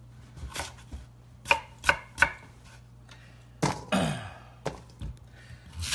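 Knife chopping a raw sweet potato into chunks on a cutting board: irregular sharp knocks of the blade hitting the board, about eight of them.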